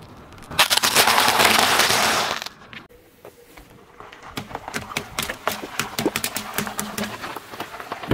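Car tyre crushing waffle ice cream cones: a loud, dense crunch lasting about two seconds. After a short gap, water balloons burst one after another under the rolling tyre, a run of sharp pops, several a second.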